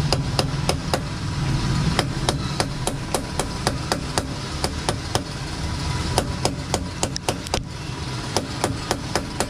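Quick, regular metal hammer taps, about three to four a second, driving a new steering bearing into a Kawasaki Z1000's steering head to seat it flush. A bearing left unseated would knock over bumps.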